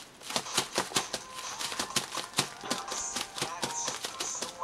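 Quick irregular clicks and taps as CD album boxes are handled and set down, over faint music.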